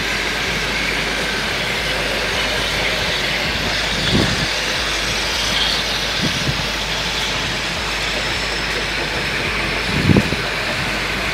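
Steady rushing background noise with a few dull low knocks, the strongest near the end.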